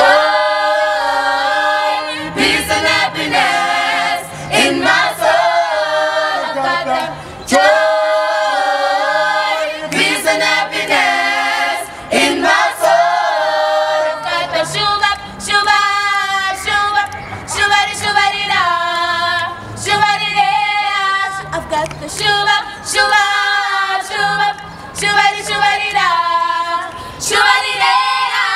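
Youth choir singing a cappella in harmony, mostly young female voices, in short phrases with brief breaks between them.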